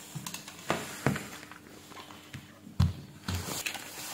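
Handling noise of multimeter test leads and probes being moved about on a workbench: a series of separate clicks and knocks, the loudest a low thump nearly three seconds in.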